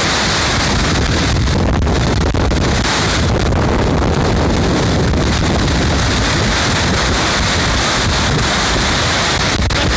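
Red Burn, a mountain stream in spate with thawing snow, rushing loudly and steadily over rocks, with wind buffeting the microphone as a low rumble.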